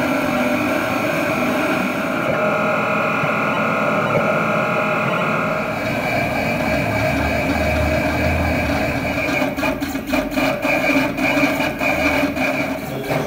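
A cutting plotter converted to draw with a marker pen, its carriage and paper-feed motors running with a steady whine that shifts pitch a few times. From about two-thirds of the way through, rapid clicking sets in as the pen head is lifted and dropped for each small stroke.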